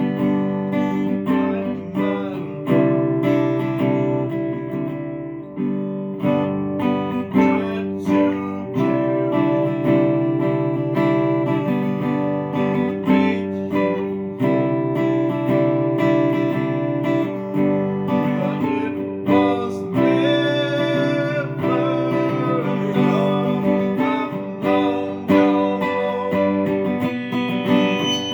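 Guitar strumming and picking chords in a steady rhythm, an instrumental stretch of a song between sung lines.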